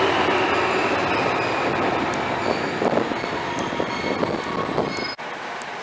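TransPennine Express Class 68 diesel locomotive and Mk5a coaches running away along the platform. The rush of wheels and running gear slowly fades and falls in pitch, with brief faint wheel squeals and a few sharp clicks. About five seconds in it cuts off abruptly to quieter station background.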